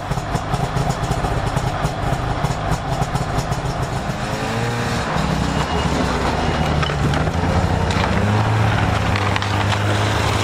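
Arctic Cat snowmobile engine running steadily, its pitch drifting up and down a little.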